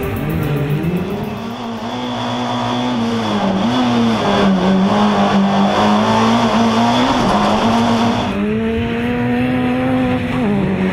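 Race car engine running at high revs, its pitch holding mostly steady with brief dips a few times, and a hiss that drops away about eight seconds in.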